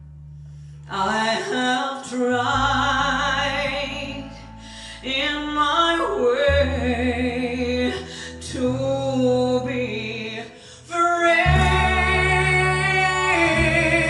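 A song recording played through Western Electric 10A-type horn loudspeakers with an 18-inch woofer: wavering held sung notes over steady deep bass notes, starting about a second in, with two brief quiet dips before the music swells again near the end.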